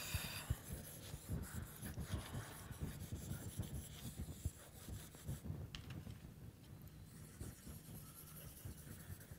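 Pen writing on sheets of paper, with soft paper rustling and many small low handling thumps.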